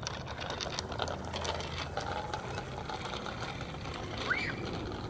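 Small children's bicycle with plastic training wheels rolling on asphalt: a fast, continuous clattering rattle of the wheels and loose parts. A short rising-then-falling squeak comes about four seconds in.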